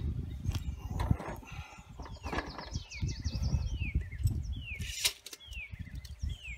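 Wind buffeting the microphone with a low rumble, and a few knocks as a heavy wooden 4x4 post is handled and set down on the table. From about two seconds in a bird sings a series of short falling whistled notes, roughly one a second.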